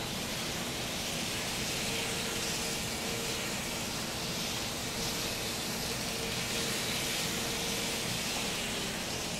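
Electric model train running around its track: a steady rushing whir of its motor and wheels on the rails, with a faint hum that comes and goes.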